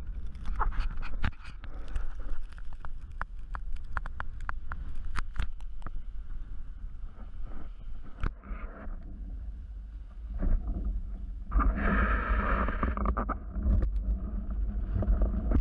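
Windsurf board skimming over choppy water, with wind buffeting the microphone as a steady low rumble. There are many sharp ticks and splashes over the first six seconds, and a louder rush of water about twelve seconds in.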